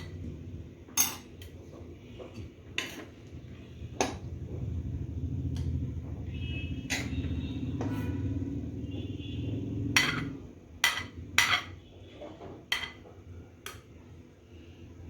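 A serving utensil clinking and knocking against a pan and plate as fried rice is dished out, about a dozen separate knocks, with a low rumble in the middle stretch.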